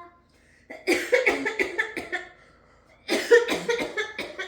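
A child coughing in two fits of rapid coughs, each about a second and a half long, acting out a whooping-cough paroxysm.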